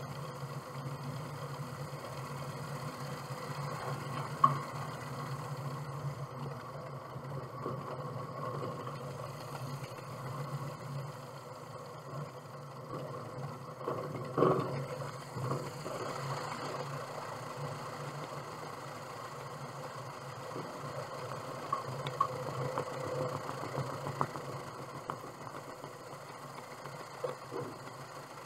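Light single-engine propeller aircraft's piston engine running steadily at low taxi power, a low drone, with a few sharp knocks: one about four seconds in, another about fourteen seconds in.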